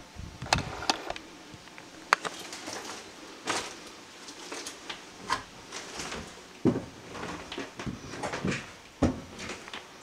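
Footsteps climbing bare wooden stairs: irregular knocks and scuffs on the treads, spaced a second or so apart.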